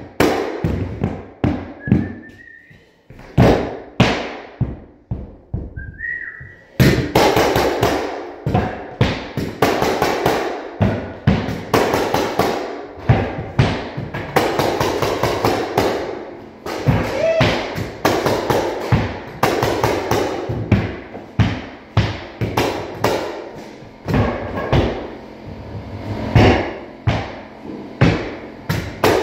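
Rubber mallet striking a pneumatic hardwood flooring nailer over and over, each blow driving a fastener through a floorboard: runs of sharp knocks, several a second, with a few short pauses in the first seconds.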